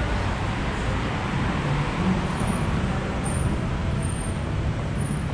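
Street traffic: vehicles passing in a steady wash of engine and tyre noise.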